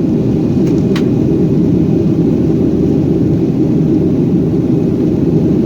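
Steady deep rumble of an airliner's jet engines and airflow heard inside the cabin after takeoff, with one faint click about a second in.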